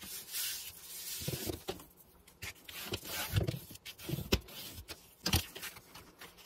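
Paper being pressed and rubbed flat by hand and with a smoothing tool on a cutting mat, with scraping strokes and several short soft knocks as the glued envelope is handled.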